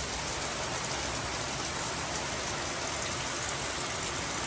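Heavy rain falling steadily, an even, unbroken hiss of a downpour.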